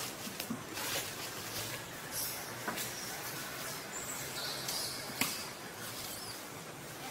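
Outdoor ambience in trees: a steady hiss with a few faint high bird chirps and several sharp clicks.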